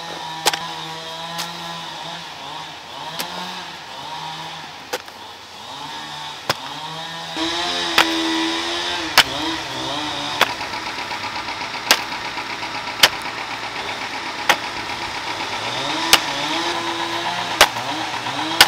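Hand hoe chopping into dry, clumpy soil: a dull thud with each stroke, roughly every second to second and a half. A steady engine-like hum comes in about halfway through.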